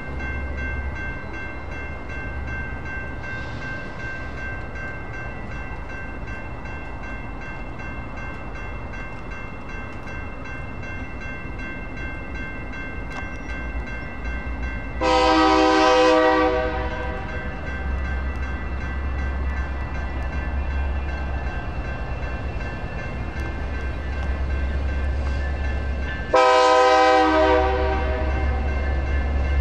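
Railroad crossing bell ringing steadily while an approaching EMD SD59MX diesel locomotive sounds its air horn twice: a long blast about halfway through and a shorter one near the end, over a low rumble.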